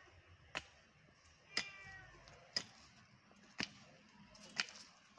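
A cat gives a short meow about one and a half seconds in. Faint sharp ticks recur evenly about once a second throughout.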